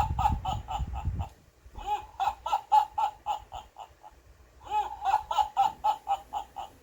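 A high-pitched laugh of quick, even 'ha-ha-ha' pulses on one pitch, repeating in bursts of about two seconds with short pauses between, like a looped recording.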